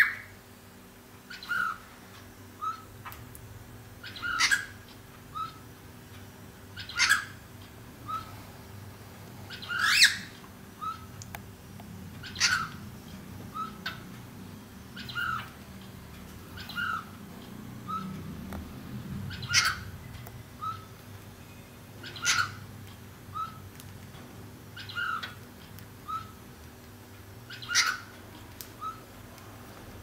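Cockatiel calling over and over, a short call about once a second. Louder, shriller calls alternate with softer short chirps.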